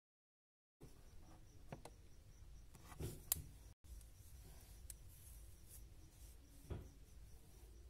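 Faint rubbing and a few light taps of hands touching the face over quiet room tone. It starts a moment in after dead silence, and the sharpest tap comes about three seconds in.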